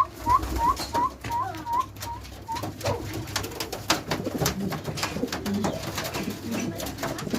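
Shami pigeons cooing. A run of short, repeated high call notes, about three a second, fills the first two and a half seconds, followed by a spell of sharp clicks and flutters over low cooing.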